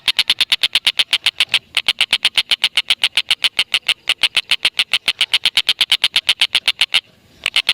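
Tengkek buto (stork-billed kingfisher) giving its long rapid cackling call, "ngekek": a fast, even run of sharp, high notes at about eight or nine a second, broken briefly twice and pausing for half a second near the end before starting again.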